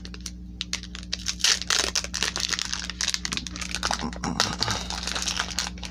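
Foil Pokémon booster pack wrapper being torn open and crinkled by hand, a dense run of crisp crackles and tearing noises.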